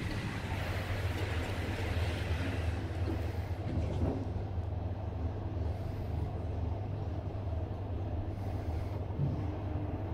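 Toshiba rope-traction service elevator car riding upward, heard from inside the car: a steady low hum of the car in motion, with a louder rushing noise in the first two or three seconds as it sets off.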